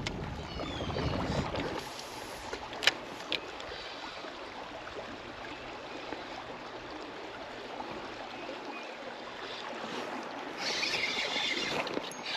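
Shallow river water rushing and rippling steadily around a drifting kayak, growing louder and hissier for the last couple of seconds. A couple of sharp clicks about three seconds in.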